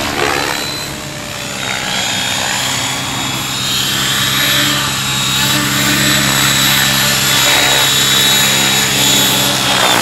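Align T-REX 700E electric RC helicopter in flight and hovering down to land: rotor blades beating steadily over a high, steady whine from the electric motor and main drive gear, here a CNC M1 main gear being tested.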